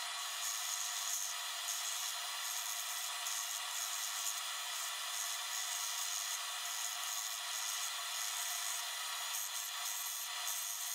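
Belt sander running steadily while a steel rounding-hammer head is held against the abrasive belt, grinding it to shape with an even rasping hiss.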